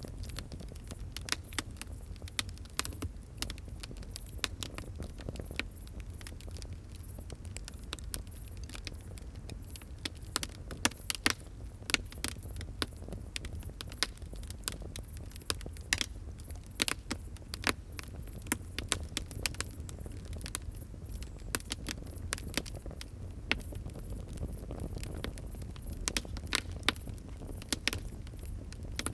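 Open fire crackling: irregular sharp snaps and pops, some loud, over a steady low rumble of burning.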